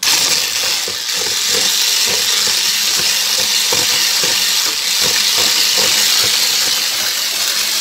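Electric hand mixer switched on at the start and running at a steady speed, its wire beaters whipping eggs and granulated sugar in a plastic bowl, with irregular light clicking as the beaters knock the bowl.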